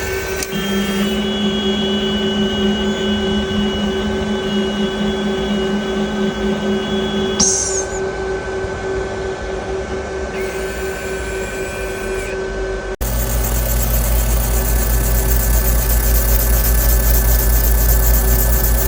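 Repair-bench machine running steadily with several high whining tones, typical of back-glass removal on an iPhone. About 13 s in the sound changes abruptly to a louder, deeper, noisier machine sound.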